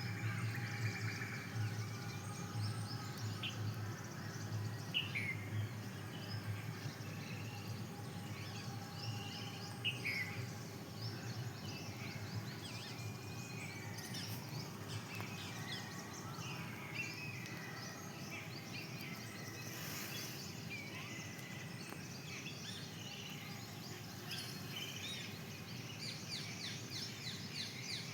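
Outdoor ambience: a steady low hum with scattered short bird chirps and quick rising and falling calls, and a run of rapid high ticks near the end.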